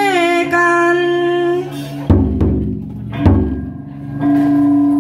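Ritual ceremony music: a large barrel drum struck twice with deep booms, about a second apart, between long held melodic notes that waver at first and come back near the end.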